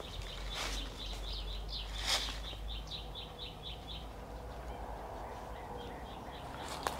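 A bird chirping in a quick series of short, high notes, about five a second, which stops about four seconds in. Two louder, sharper calls come out over it early on.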